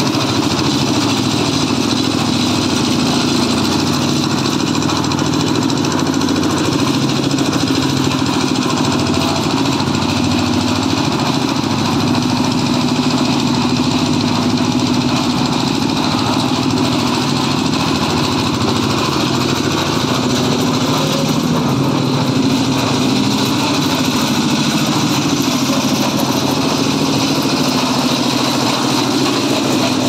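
Small diesel engine of a one-bag concrete mixer running steadily at an even speed.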